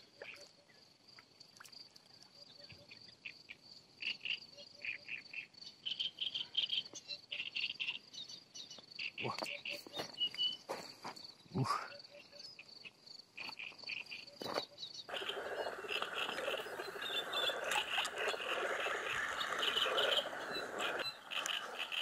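An insect chirping steadily at a high pitch, with bird calls around it. A few sharp clicks and a short rising whoosh come near the middle, then a steady rushing noise for about six seconds near the end.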